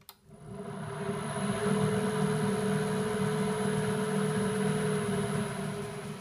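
Electric motor belt-driving a Schaublin 70 lathe headstock through a variable frequency drive: a click as it is switched on, then motor and spindle spin up over about a second and a half to a steady hum with a high whine. It quietens near the end as the speed is turned down.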